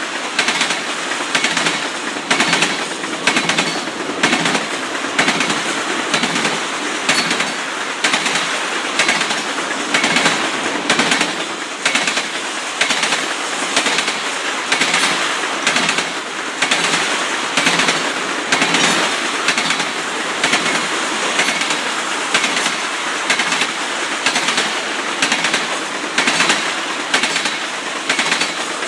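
Steady loud clattering noise, with sharp clicks recurring in a rough rhythm through it.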